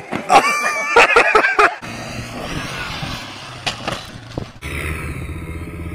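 A voice yelling loudly for about the first two seconds. Then a small engine running, with two sharp knocks about half a second apart, and after an abrupt change near the end a different engine running steadily.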